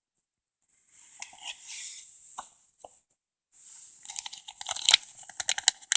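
Crinkling and rustling of comic books being handled. It starts after a quiet first second, pauses briefly, then turns into a dense run of crackles with a few sharp snaps in the second half.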